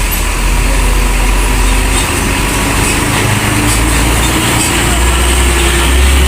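Heavy vehicle engine running with a low, steady rumble close by, growing louder over the last second or so.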